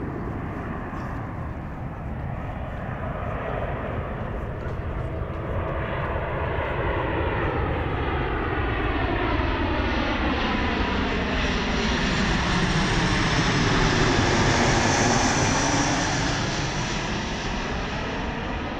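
Boeing 737-800's CFM56 jet engines on landing approach, growing louder as the airliner passes low overhead, peaking about three-quarters of the way through and then starting to fade. A rushing jet whine with a sweeping, phasing quality as it passes.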